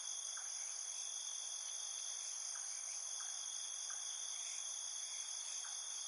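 Steady, high-pitched chorus of insects droning in the vegetation.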